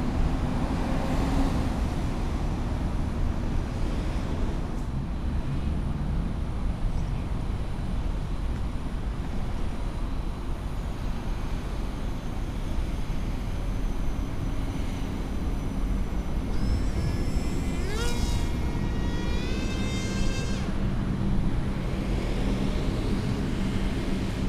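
Wind buffeting the microphone in a steady low rumble. About 17 seconds in, a motor whine rises sharply in pitch, holds for a couple of seconds, then cuts off: the electric motor and propeller of a small RC flying wing throttling up.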